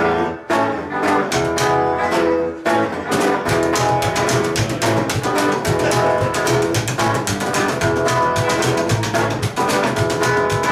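Rockabilly band playing an instrumental passage at a fast, steady beat, led by an upright double bass with percussive plucked strokes and a hollow-body electric guitar.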